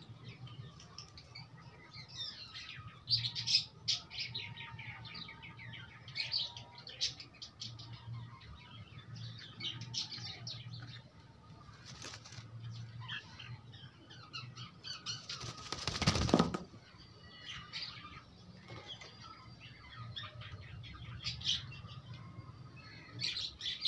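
Chickens pecking scattered feed grains off a concrete floor: quick runs of beak taps, with soft chirps and clucks between them. About sixteen seconds in comes a loud rustling burst lasting about a second.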